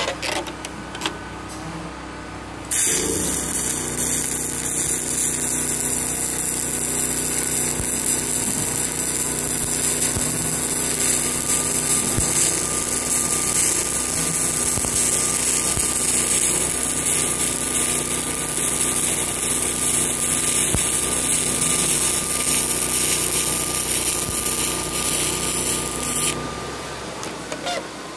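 Stick welding with a 7018 electrode. The arc strikes about three seconds in, crackles and hisses steadily for about twenty-three seconds, then breaks off. Under it the welding machine hums steadily throughout.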